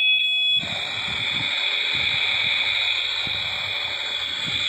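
Battery-powered toy kitchen stove playing its electronic cooking sound effects through a small speaker: a high beeping tone cuts off about half a second in and gives way to a steady sizzling hiss with a thin high whistle inside it.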